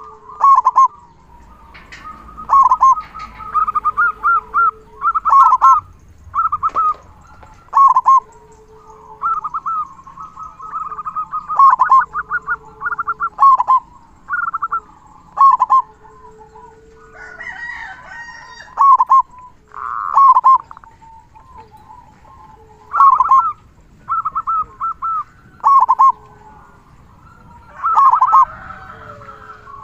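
Zebra dove (perkutut) singing over and over. Each phrase is a quick run of clipped cooing notes with a lower, drawn-out note, and a new phrase comes every couple of seconds. This is the bird's full 'kung' song, used as a masteran to get other perkutut singing.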